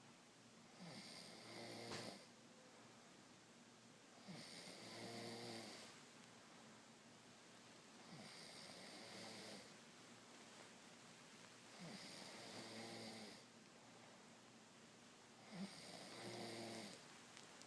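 A woman snoring in her sleep: five snores, one about every four seconds, each lasting a second or so.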